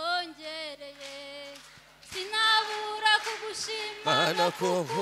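A woman singing unaccompanied into a microphone, in long, wavering held notes with a short break partway through. About a second before the end, a second, lower voice joins in.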